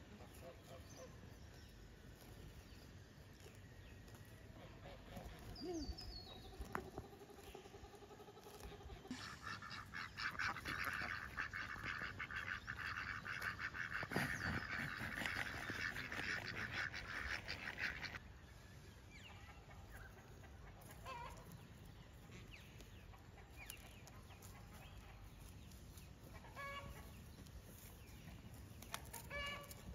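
A flock of domestic ducks quacking rapidly together for several seconds, starting about nine seconds in and stopping about eighteen seconds in. Before that there is only a quiet outdoor background, and near the end there are a few short pitched animal calls.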